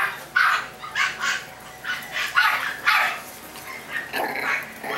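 Chihuahua puppies barking and yipping in play: a string of short, high-pitched barks, about two a second.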